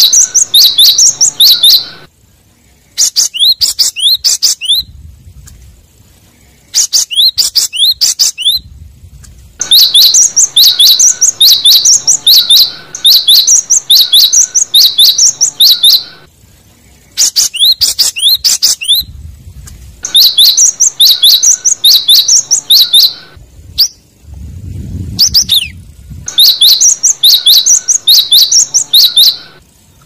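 Cinereous tit (gelatik batu) singing loudly: bouts of quickly repeated high phrases lasting from a second or two to several seconds, with short pauses between them and fainter sharp calls in the gaps. It is a territorial song, played as a lure to call rival birds.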